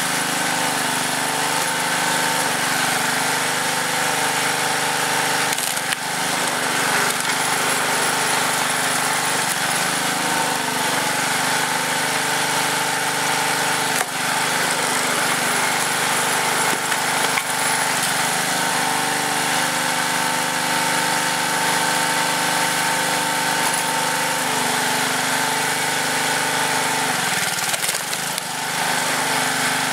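The Tecumseh small engine of a hydraulic log splitter runs steadily, its note shifting now and then as the splitter works. A few sharp cracks of wood splitting come through over it.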